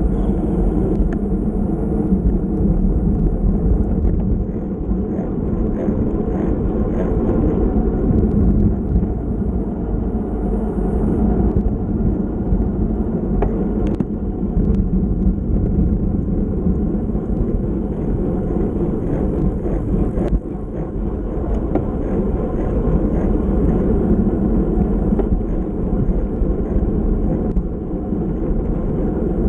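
Steady rush of wind and road noise from a bicycle ridden in a race, picked up by a camera mounted on the bike, with a few faint clicks.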